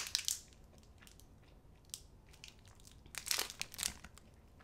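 Foil protein-bar wrapper crinkling as it is peeled open, in short bursts: a sharp one at the start, a brief one about two seconds in, and a longer stretch just after three seconds.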